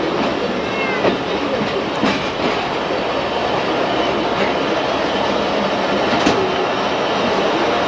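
Jaffar Express passenger train running along the track: a steady rumble and rattle, with a few sharp knocks from the wheels over rail joints.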